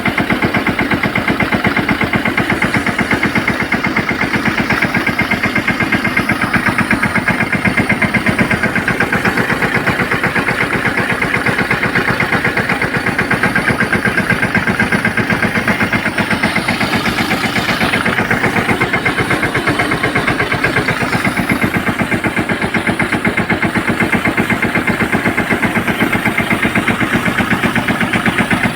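Tractor engine running steadily with a fast, even beat while it works the spray pump for spraying pesticide on mango trees.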